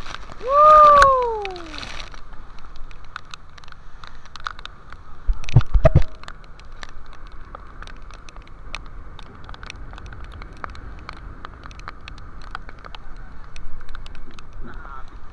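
Rough sea and wind, with spray pattering and crackling on the camera. About a second in comes a loud pitched cry that rises and then falls, and a few heavy low thuds come around the middle.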